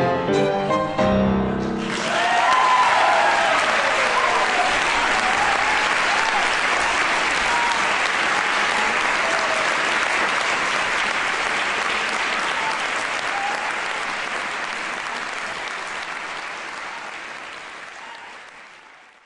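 Violin and grand piano play the closing chords of the piece. Then a concert audience applauds, and the applause fades out near the end.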